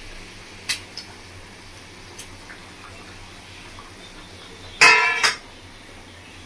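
Stainless steel plate and cookware clinking as fried fish pieces are put into a kadai of curry. A few light taps come first, then a loud ringing metallic clatter about five seconds in.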